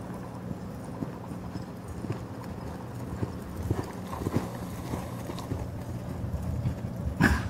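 Palomino Quarter Horse gelding's hoofbeats thudding on soft arena dirt as it moves under a rider, loudest about four seconds in as it passes close. One sharp, loud thump near the end.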